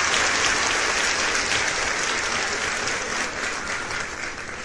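Applause from a crowd, fading out slowly.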